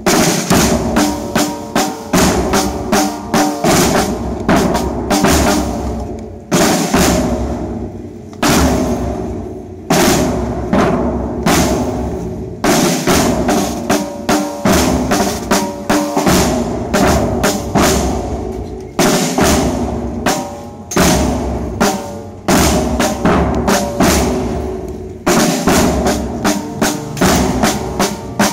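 Processional marching drums beating a loud, repeated march rhythm. The strikes come in phrases of about two seconds, each followed by a brief gap.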